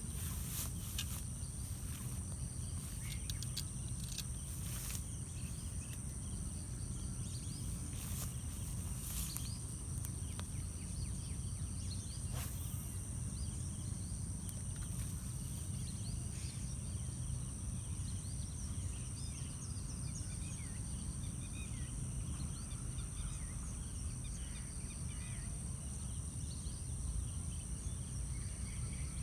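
Steady high-pitched insect chorus, with scattered bird chirps over it. A few sharp clicks come in the first ten seconds.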